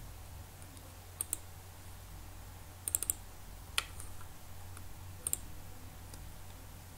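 Computer mouse button clicking, a handful of short sharp clicks, one of them a quick double click, over a faint steady low hum.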